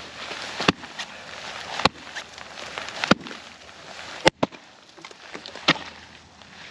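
Kelly Black Raven axe chopping into pond ice to test its thickness: five sharp strikes about a second apart.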